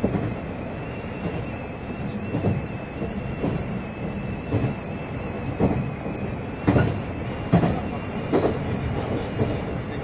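On-board running sound of a JR 103 series electric train, heard from inside the car: a steady rolling rumble, with the wheels knocking over rail joints about once a second.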